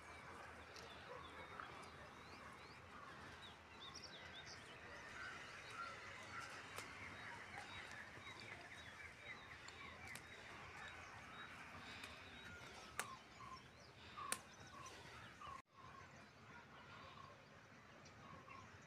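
Faint background of small birds chirping and twittering in quick repeated notes, with two sharp clicks about two-thirds of the way through.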